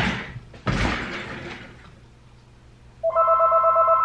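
A telephone ringing with a rapid warbling electronic trill, starting about three seconds in with a short break near the end. Before it come two loud rustling swishes of movement.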